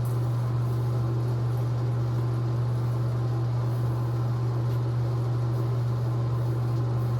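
A steady low hum with a hiss behind it, unchanging throughout.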